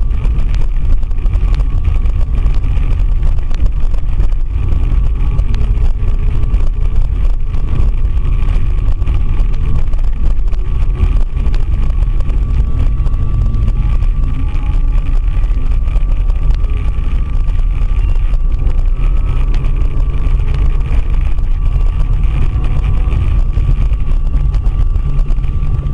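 Car driving along a road: steady rumble of engine and tyre noise heard from inside the cabin, with a faint steady whine.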